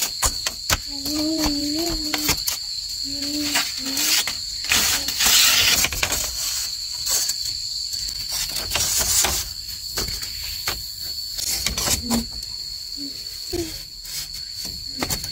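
Hollow bamboo poles knocking and clattering against each other as they are handled and set into a wall. Steady high-pitched insect drone behind.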